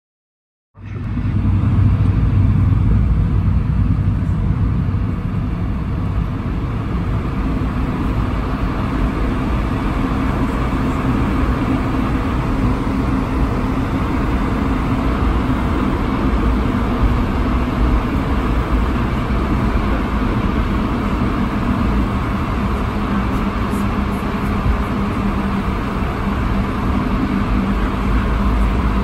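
Cabin noise of an Airbus A220-300's Pratt & Whitney PW1500G geared turbofans running steadily at low power, with a constant low hum under a rushing noise, as the aircraft taxis. It starts suddenly about a second in.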